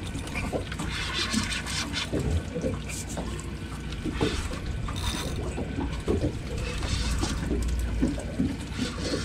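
Water sloshing and splashing against a boat's hull, with a low wind rumble on the microphone.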